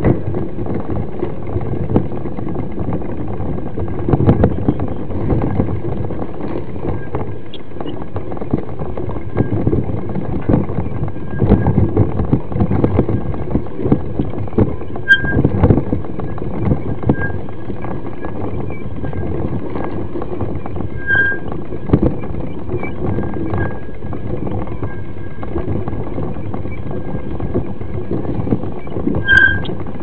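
Mountain bike riding over a rough dirt trail: a continuous rumble of the ride with constant rattling knocks and clicks as the bike jolts over bumps, swelling in a few rougher stretches.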